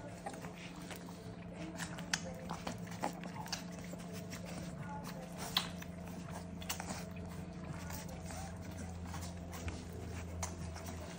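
Basenji puppies suckling from their standing mother: many short wet smacking and sucking clicks over a steady low hum.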